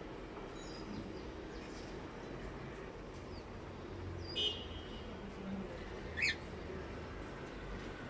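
Cockatiels chirping: two short, sharp high calls, the second one rising, about two seconds apart, with a few fainter chirps before them, over a steady low background hum.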